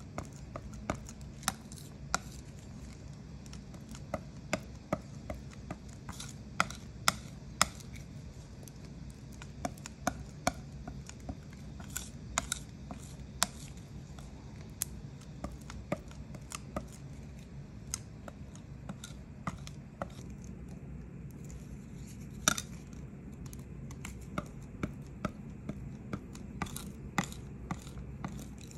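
Steel ink knife tapping and scraping on a hard ink slab as blue and silver letterpress ink is mixed and spread, giving irregular sharp clicks, sometimes a few a second, over a steady low hum.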